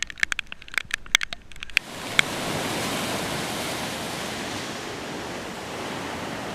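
A rapid, irregular run of sharp clicks and crackles, then from about two seconds in a steady, even rushing noise.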